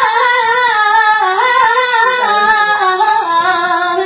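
A child singing an Iraqi mawwal: one long, ornamented run on a held vowel with no words, the high voice wavering up and down and stepping lower in pitch toward the end.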